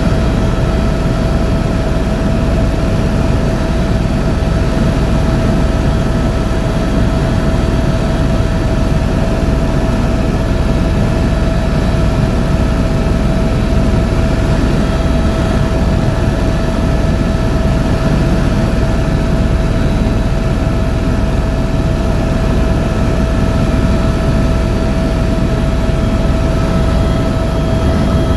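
Tour helicopter in flight: steady engine and rotor noise with a constant high whine, unchanging throughout.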